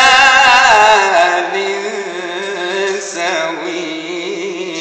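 A man reciting the Quran in a melodic chant with a strong voice, holding long ornamented notes: a high held note falls to a lower, wavering one about a second in, with a short rising flourish near three seconds.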